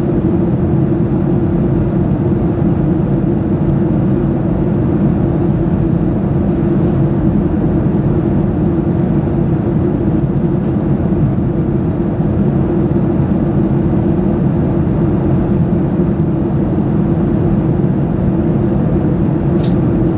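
Cabin noise inside a Boeing 737-800 in flight: its CFM56-7B jet engines and the airflow over the fuselage make a steady low drone.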